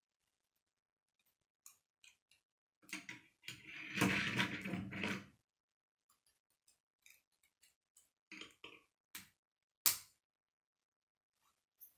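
K'nex plastic rods and connectors being handled and snapped together: scattered small clicks, a louder stretch of rattling from about three to five seconds in, and one sharp snap near the end.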